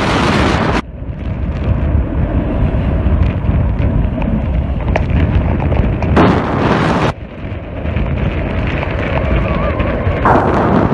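Strong near-gale wind buffeting the microphone aboard a sailboat under sail, a heavy rumbling roar, broken three times by short, loud hissing surges: at the start, about six seconds in, and near the end.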